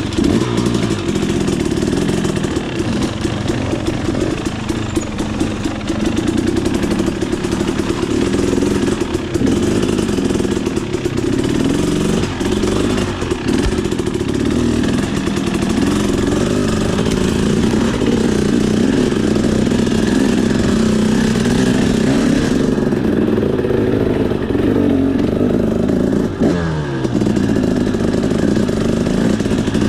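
KTM 300 EXC two-stroke enduro motorcycle with a Pro Circuit R304 exhaust, its engine running continuously under constantly changing throttle on a technical trail. The pitch rises and falls as it is revved and eased off, with a quick drop and pick-up in revs near the end.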